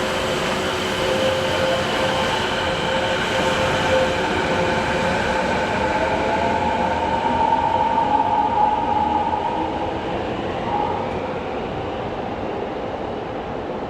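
Kobe Municipal Subway 1000-series train running, its IGBT VVVF traction equipment giving steady whining tones over the rushing rolling noise. Some of the tones slide in pitch, and the sound eases off after about ten seconds.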